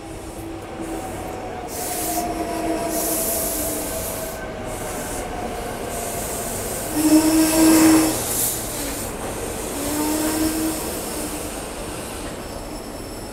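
SEPTA Regional Rail electric train running along the platform, its steel wheels squealing in on-and-off tones over a slowly falling whine. The squeal and hiss are loudest about seven to eight seconds in.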